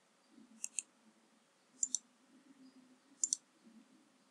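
Computer mouse clicks: three quick double clicks spaced about a second apart, faint against a low room hum.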